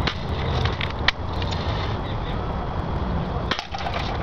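Red Ryder lever-action BB gun being cocked and shot, heard as a few short sharp clicks and snaps, the loudest about a second in, over a steady low rumble.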